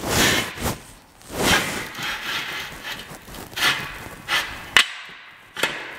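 Steel extension arm of a drywall panel lift being slid in and out of the lift's cross-beam: several strokes of metal rubbing on metal, then a sharp click near the end.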